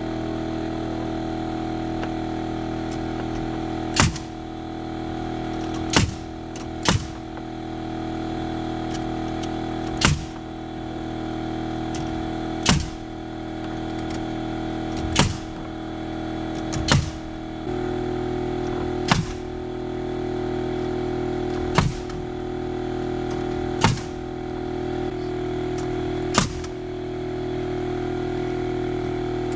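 A framing nail gun firing about a dozen sharp shots at irregular intervals of two to three seconds, over a steady droning background.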